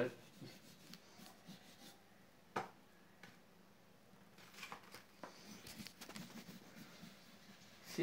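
Faint strokes of colouring on paper as a bird picture is painted, with a sharp tap about two and a half seconds in and a few lighter ticks a couple of seconds later.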